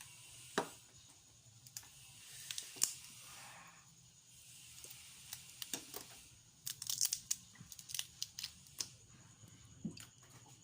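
Boiled seafood shells being peeled and cracked by hand: scattered small clicks, crackles and tearing sounds, thickest about seven seconds in.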